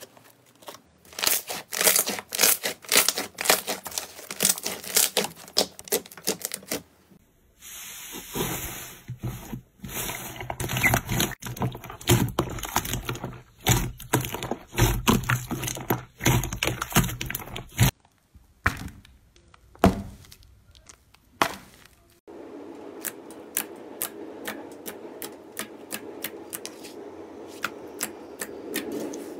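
Slime being stretched, kneaded and pressed by hand, giving rapid sticky crackles, pops and tearing sounds. Near the end the pops thin out into a steadier wet hiss with lighter clicks.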